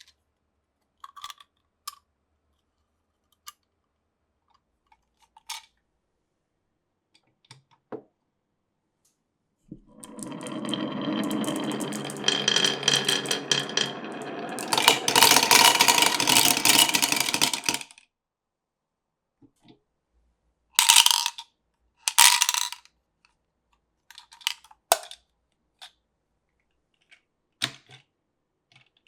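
Marbles running down a marble-run course. There are scattered clicks and knocks at first. About ten seconds in comes some eight seconds of continuous rolling and rattling, which grows louder partway through. Then come two sharp, loud clatters a little after twenty seconds and more light clicks near the end.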